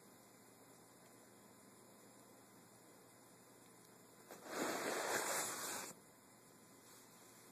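Faint steady hum and hiss, broken about four seconds in by a loud rustling, rubbing noise of the recording phone being handled, lasting about a second and a half before it cuts off.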